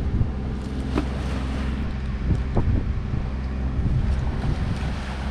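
A steady low motor hum under wind noise on the microphone, with a few short knocks about one second and two and a half seconds in.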